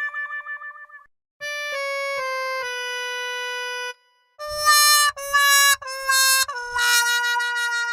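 Cartoon 'fail' sound-effect jingles played on a reedy, harmonica-like wind instrument. A wavering note fades out in the first second. After a short gap come three held notes, each a step lower than the last, the sad 'wah-wah-wah' of failure. After another gap there are quick notes over low thuds, then a note that slides down and is held before fading near the end.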